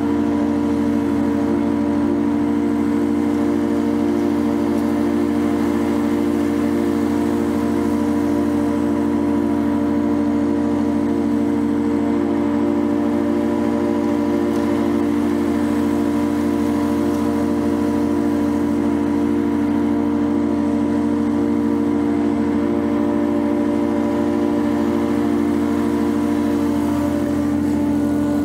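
Walker riding mower's engine running at a steady, unchanging speed while mowing, a constant engine drone.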